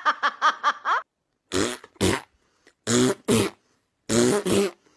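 A cat gives a quick run of about eight short, chirping meows in the first second. After a brief gap come loud, short, rough grunting bursts, singly and in pairs.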